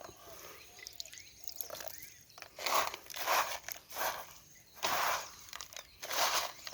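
Hands working wet fishing-bait mix in a container: a series of short scraping, crunching strokes, five or six of them, each about half a second long.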